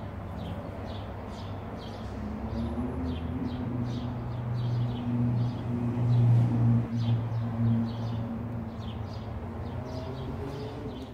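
Outdoor background: a bird chirping over and over, about two short chirps a second, over a low motor hum that swells in the middle and then eases off.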